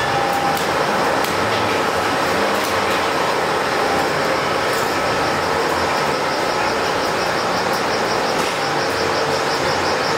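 Plywood factory machinery running: a steady, even mechanical noise with faint whining tones held under it.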